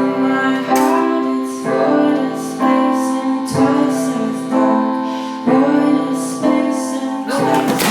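A woman singing long held notes over piano or keyboard accompaniment, in phrases about a second apart. The music breaks off near the end into a noisier clatter.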